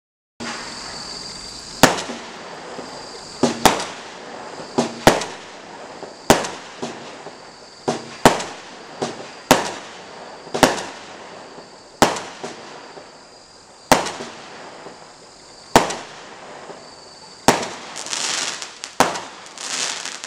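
Standard Fireworks Electric Storm, a 12-shot category F2 cake, firing. A string of sharp bangs comes every second or two as the red star and silver glitter shots launch and break, over a steady hiss. Near the end the bangs give way to a fizzing crackle as the final gold crackling shots break.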